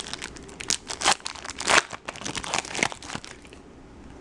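Crinkling and crackling of a trading-card pack's wrapper being handled and torn open, a rapid irregular crackle that dies down about three seconds in.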